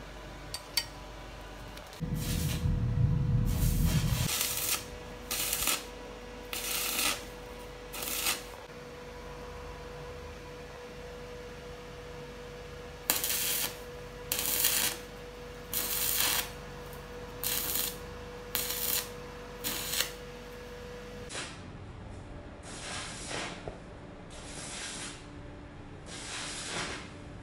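Stick-welding arc crackling in about a dozen short bursts of under a second each, tack-welding coarse-thread 12 mm nuts onto a threaded rod, over a faint steady hum. A louder low rumble sounds between about two and four seconds in.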